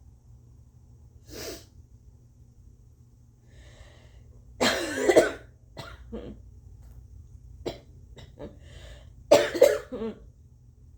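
A person coughing phlegmy, wet coughs: a short cough about a second and a half in, then two loud fits of two coughs each, about five seconds apart, each after a breath in, with small throat sounds between them. The coughing goes with what the person believes is a slight cold.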